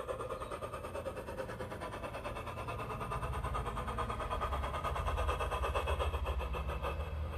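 Large-scale garden railway model of Thomas the Tank Engine running along the track: a steady motor and wheel rumble with a rapid, even pulsing. It grows louder over the first five seconds or so and eases off near the end.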